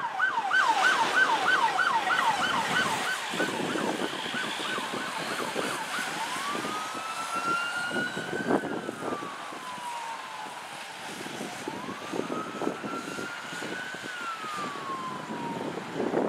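Emergency siren on a fire rescue truck responding with lights and sirens, first in a fast yelp of about three sweeps a second, then switching about six seconds in to a slow wail rising and falling twice. It grows fainter as the truck drives away.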